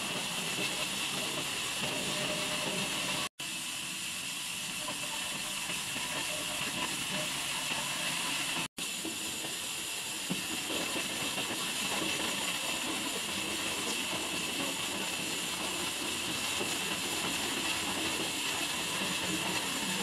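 Horizontal band sawmill running, a steady high-pitched hiss as the band blade cuts through a log. The sound drops out twice for an instant.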